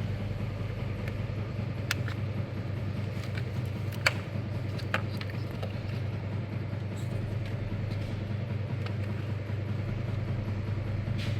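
A steady low mechanical hum, like an engine or motor running, with a few sharp clicks over it.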